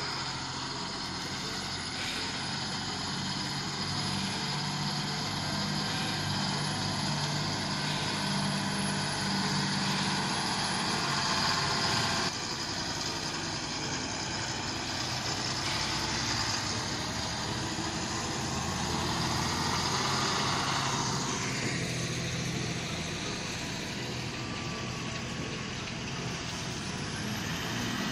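Diesel engine of an Ashok Leyland 4x4 borewell drilling truck running as the truck drives slowly off-road, under a steady hiss. The sound changes abruptly about twelve seconds in.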